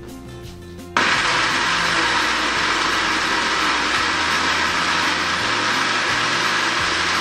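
Countertop blender switched on about a second in, then running steadily at full speed, blending chopped apples with milk into batter.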